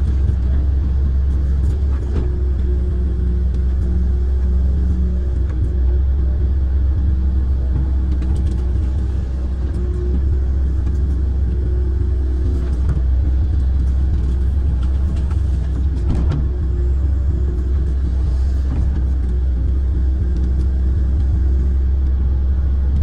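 Kobelco amphibious excavator's diesel engine running steadily under working load, a deep even rumble heard from the operator's cab, with a few faint knocks here and there.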